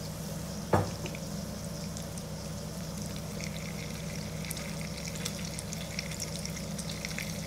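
Spring-roll-wrapped cheese sticks shallow-frying in oil in a pan: a steady sizzle with scattered small crackles over a steady low hum, and one sharp pop just under a second in.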